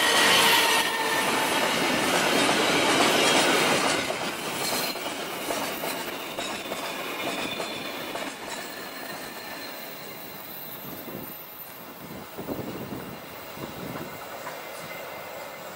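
Fuel tank wagons of a freight train rolling past close by: wheels clattering on the rails with a high wheel squeal at the start. Loud for the first four seconds, then fading steadily as the train moves away, with a few clacks over rail joints about twelve seconds in.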